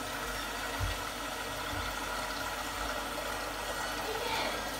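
Kitchen range hood extractor fan running, a steady whooshing hum, with a couple of soft low thumps about one and two seconds in.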